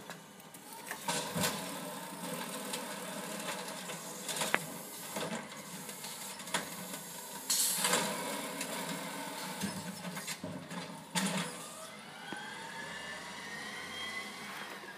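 Amrep side-loader garbage truck's diesel engine running, with a short loud hiss about halfway through, then a rising whine as the truck pulls away near the end.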